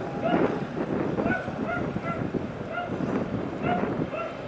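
An animal calling in short, high-pitched calls that repeat roughly every half second.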